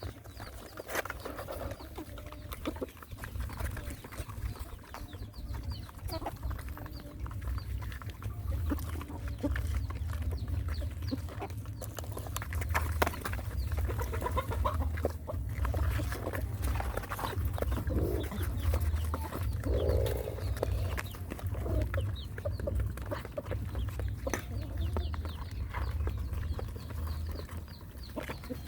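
Animal noises, with short pitched calls and many sharp clicks over a steady low rumble.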